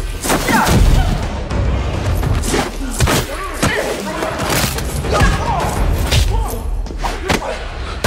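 Fight-scene soundtrack from a TV series: a quick run of punches, blows and body thuds, about one or two a second, over a dramatic music score.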